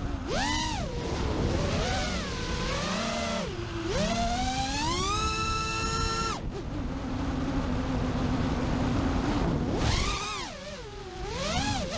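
FPV quadcopter's brushless motors whining, the pitch swooping up and down with the throttle; a long climb in pitch about 4 to 6 seconds in, then a steadier lower hum for a few seconds before quick swings again.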